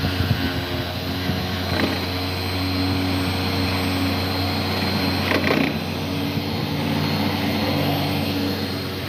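Handheld electric polisher with a foam pad running steadily against a motorcycle's painted fender: an even motor hum whose pitch shifts slightly under hand pressure, with a couple of brief knocks.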